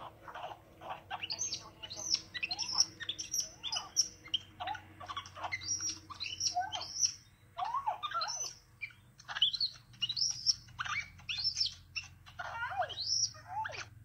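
Baby capuchin monkey chirping and squeaking: a rapid, continuous run of short high calls that glide up and down in pitch. These are its greeting calls to its returning owner.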